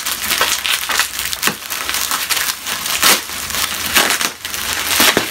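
Plastic bubble wrap crinkling and crackling as hands grip and squeeze it, with a few sharper cracks.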